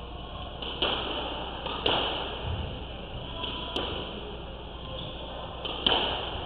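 Squash rally: the rubber ball is struck by rackets and smacks off the court walls in a series of sharp cracks, a second or two apart, each echoing briefly in the court.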